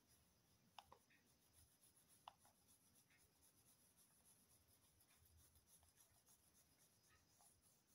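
Very faint scratching of a colour pencil shading on drawing paper, with two small ticks about a second and two seconds in.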